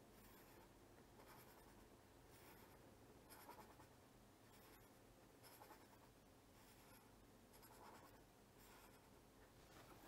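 Faint scratching of a pen on paper as quick up-and-down strokes are drawn, coming in short bursts about once a second.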